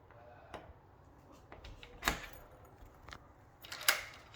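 Key being worked in a Kwikset SmartKey lock: a few separate metal clicks as the key goes in and turns the lock, the loudest about two seconds in.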